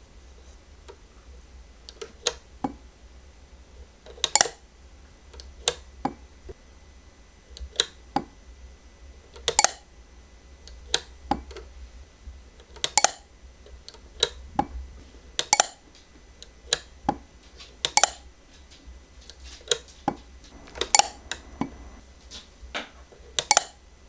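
Sharp clicks and knocks of hard objects being handled and set down, coming irregularly about once a second after the first couple of seconds, over a low hum.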